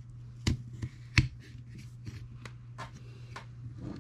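Carbon-fibre top plate of an FPV drone frame being fitted onto the frame by hand: a string of light clicks and taps, with two sharper knocks about half a second and a second in.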